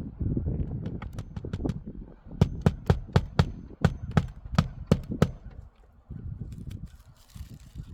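Nails being driven into asphalt roof shingles: a quick run of about a dozen sharp strikes, roughly four a second, with a few lighter ones before them, over low scuffing and handling noise.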